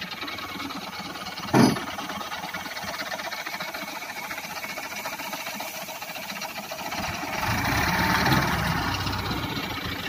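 Engine of heavy yard machinery running, growing louder for about two seconds near the end, with one short sharp knock about one and a half seconds in.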